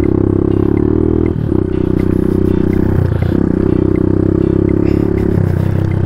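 Suzuki dual-sport motorcycle engine running under steady throttle while riding a dirt trail, holding an even pitch with short drops about one and a half, three and five and a half seconds in.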